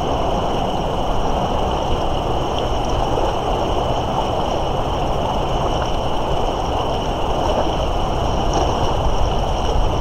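Steady rushing of a fast-flowing river swollen with spring thaw water.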